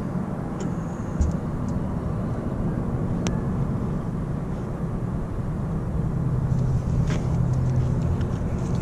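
A motor vehicle's engine running steadily: a low, even hum, with a few light clicks over it.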